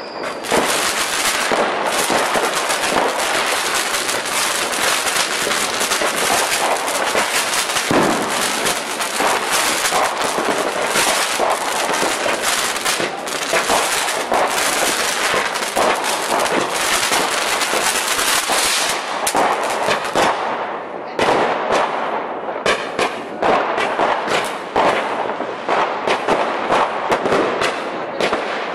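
Fireworks going off in a dense, continuous crackle of rapid pops, thinning after about twenty seconds into separate sharp cracks.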